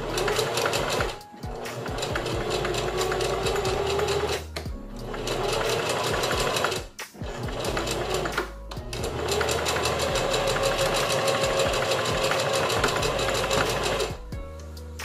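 Electric sewing machine stitching through a wig cap to sew on a wig comb, running fast in five spells with four brief pauses between them.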